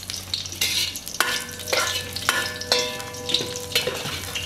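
Metal spoon scraping and knocking against a stainless steel pot while scooping sautéed shallots, garlic and green chilies out of sizzling oil. Each of several knocks leaves a short metallic ring over the sizzle.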